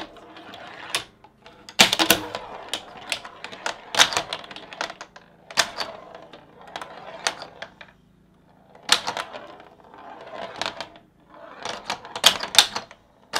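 Hand-built wooden pinball machine being played: flippers clacking and a metal ball knocking and rolling around the wooden playfield. The clacks come in quick runs with short pauses between them.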